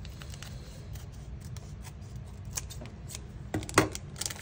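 Clear plastic packaging crackling and a thin metal cutting die clicking as they are handled, with a louder clack about three and a half seconds in.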